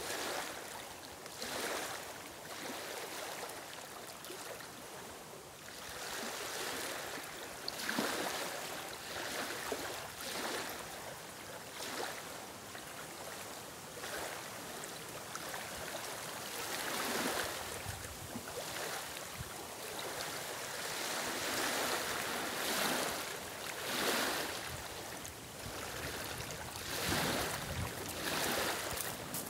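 Small waves lapping on a stony lakeshore, a soft wash of water over the stones that swells every second or two.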